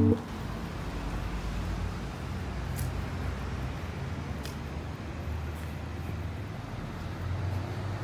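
City street traffic noise: a steady low rumble of cars on the road, swelling a little near the end.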